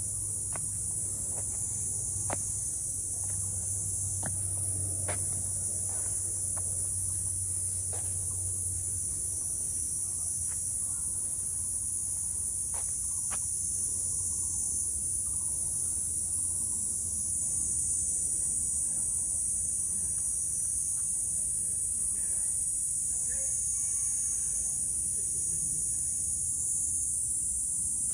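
Steady high-pitched insect chorus from the forest, with scattered footsteps clicking on the trail during the first half.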